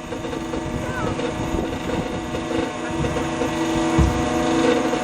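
Fast rescue boat's engine running steadily, with a short low thump about four seconds in.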